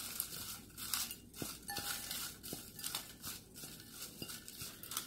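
Folded paper slips rustling and crinkling as a hand stirs them around in a glass bowl, in uneven handfuls, with a few light clicks.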